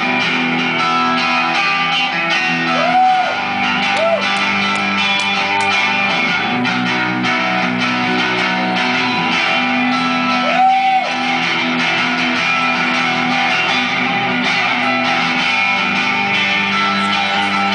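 Live band playing a guitar-led instrumental passage with no singing, with a few short notes that bend up and back down.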